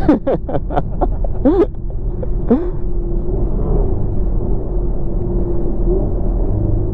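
Performance engine giving a quick string of sharp cracks and short rev blips in the first few seconds, then settling to a steady low rumble.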